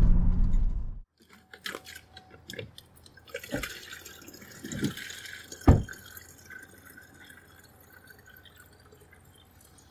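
A truck's driving noise ends abruptly about a second in. It gives way to scattered water drips and light taps, with one louder knock near the six-second mark.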